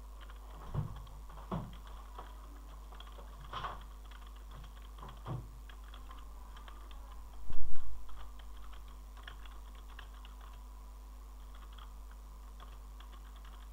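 Typing on a computer keyboard: irregular keystrokes, with one louder thump about halfway through, over a faint steady hum.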